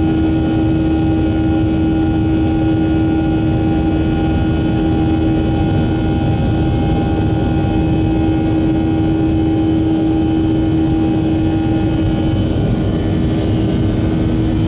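Airliner cabin noise in flight: the jet engines' steady drone, with several held tones over a low rumble. One of the higher tones fades out near the end.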